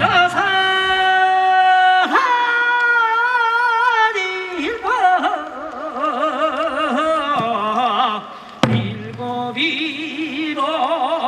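Korean rice-planting farmers' song (nongyo) sung by a solo voice, holding long steady notes and then wavering, melismatic ones. One sharp beat, likely a drum, sounds about two-thirds of the way through.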